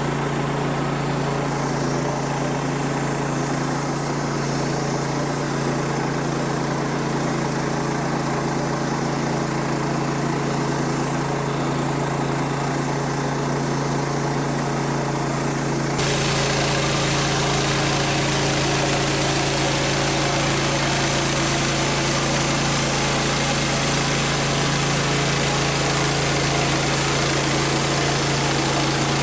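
Sawmill engine running steadily with a constant low hum. About halfway through, the sound suddenly turns brighter and a little louder.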